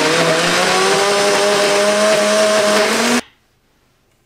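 Omniblend high-speed blender running, puréeing mango pieces and cashews into a smooth sauce; its motor whine rises slightly in pitch as the mix smooths out, then cuts off suddenly about three seconds in.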